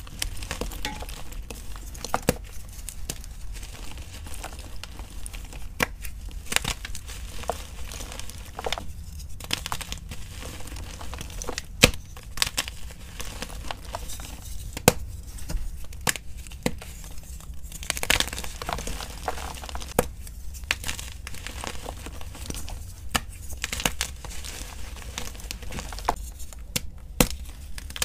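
Blocks of gym chalk crushed and crumbled between the fingers into powder, a continuous dry crunching with sharp snaps every second or so as chunks break apart.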